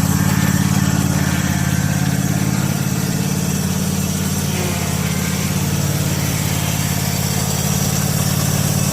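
18 hp Kawasaki twin-cylinder engine of a Husqvarna YTH 1848 XPT lawn tractor running at a steady speed, a low, even hum.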